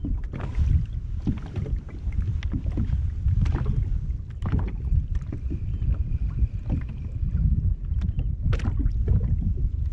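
Wind rumbling on an action camera's microphone aboard a fishing kayak, with scattered small knocks and clicks.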